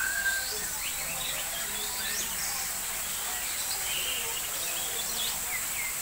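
Many birds calling at once: short chirps and quick whistled glides overlapping throughout, over a steady high hiss.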